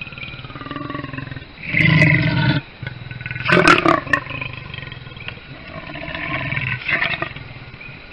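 Leopard growling and snarling in several loud spells, the loudest about three and a half seconds in with a few sharp clicks through it.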